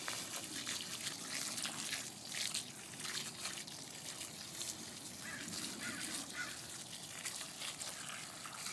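Water from a garden hose spraying and splashing over a pile of freshly dug potatoes, rinsing the dirt off.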